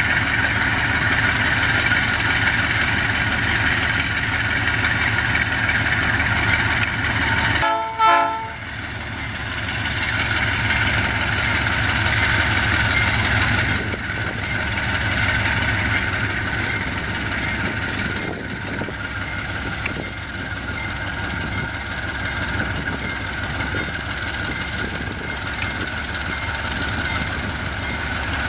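Diesel locomotive of a ballast train running steadily, with a brief break in the sound just before a short horn blast about eight seconds in.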